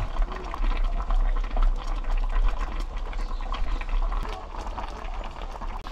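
A pot of spicy braised red sea bream with radish simmering on low heat, the thick sauce bubbling and crackling steadily, over a low steady hum.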